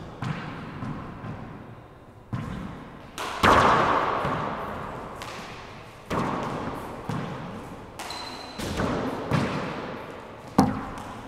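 Four-wall handball rally: the small rubber ball smacks off gloved hands, the walls and the wooden floor about ten times at uneven intervals, each hit ringing on in a long echo off the court's hard walls. The loudest smack comes about three and a half seconds in.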